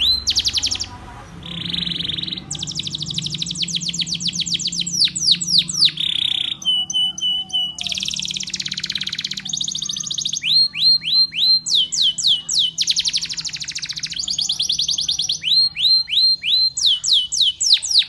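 Canary singing a continuous song: phrases of rapid repeated falling chirps, each phrase at its own speed, passing from one run to the next with a short steady trill about seven seconds in.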